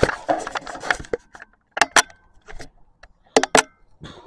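Handling noise from a small camera being picked up and moved: rustling and clattering knocks for the first second, then a few sharp clicks about two seconds in and a quick cluster of knocks near the end.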